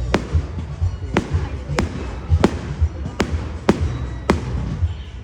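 Fireworks display: a run of about seven sharp bangs at irregular intervals, roughly one every half second to second, over a steady low rumble.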